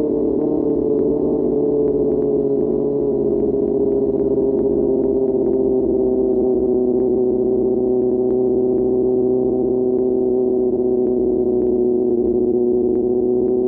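QJ Motor SRK600's inline-four engine through an SC-Project exhaust, held at a steady cruising speed. Its note sags slightly and then climbs again near the end.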